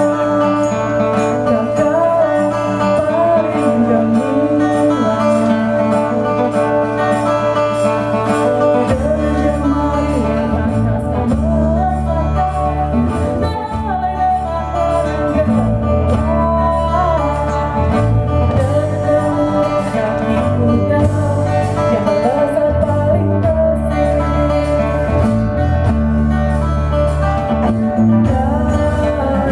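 Live band music with women singing over acoustic guitar and hand drum; a low bass line comes in about nine seconds in.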